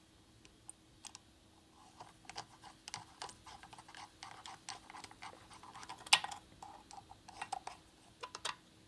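Screwdriver fastening the small screws of the ignition module in the timing cover of a Harley-Davidson Sportster Ironhead engine: light clicks and scrapes of the bit on the screw heads, with one sharper click about six seconds in.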